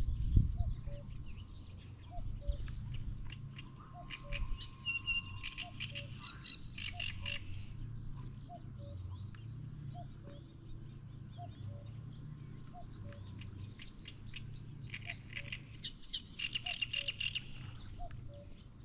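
Wild birds chirping and singing in quick bursts, with a low two-note call repeating evenly throughout.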